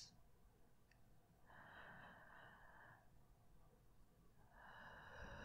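A woman's faint, slow breathing close to the microphone: one breath about a second and a half in lasting about a second and a half, and another starting near the end.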